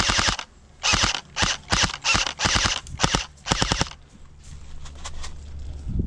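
Airsoft guns firing short full-auto bursts, about eight quick rattling bursts over four seconds, then stopping.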